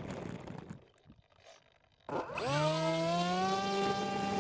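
Rough rumble that fades to near silence about a second in; about two seconds in, the Bix3's electric motor and propeller spin up, rising quickly in pitch and then holding a steady hum.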